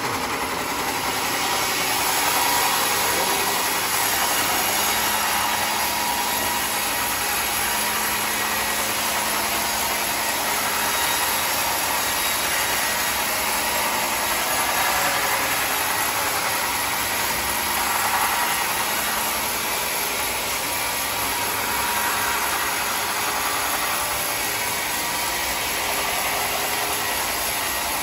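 Homemade band sawmill running and sawing lengthwise through a thick slab of red hardwood: a steady machine noise with small swells in level as the blade works through the wood.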